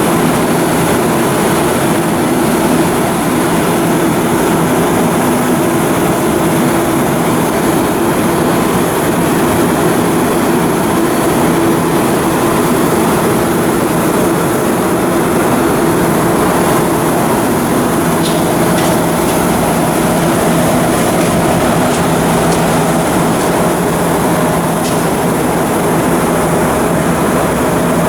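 Heavy shipyard machinery running steadily: a loud, continuous mechanical drone with a few steady low hums and a couple of faint clicks.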